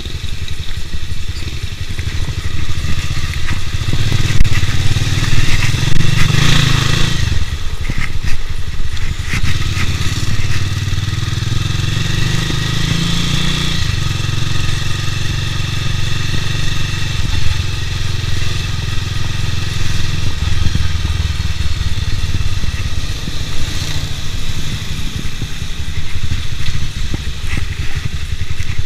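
Bajaj Pulsar 200 DTSI's single-cylinder engine running as the motorcycle is ridden at low speed. The engine revs up about four to seven seconds in, drops off sharply, and rises again about halfway through before settling to a steady run.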